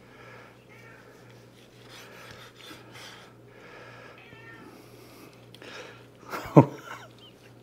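A domestic cat meowing several times, begging for the meat, with one much louder, sharp sound about six and a half seconds in.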